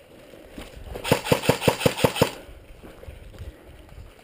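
Airsoft rifle firing a rapid string of about eight shots, roughly six a second, about a second in.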